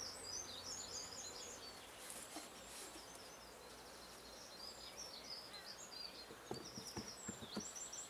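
Small birds chirping and twittering steadily in the background, many short high calls. A few faint knocks come near the end as wooden hive boxes are set in place.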